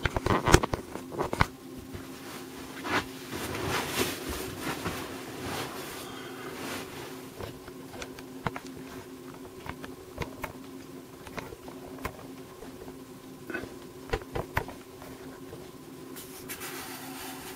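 A steady low buzzing hum, with scattered clicks and knocks in the first couple of seconds and a rustle of paper being moved on a tabletop near the end.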